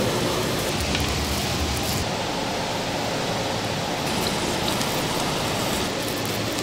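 Marinated beef tripe and large intestine sizzling steadily on a grill, a constant rain-like hiss.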